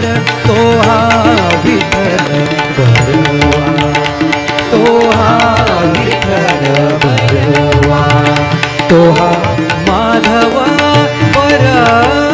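Marathi abhang bhajan music: harmonium chords and a sung melody with wavering, ornamented turns over steady tabla and mridang drumming.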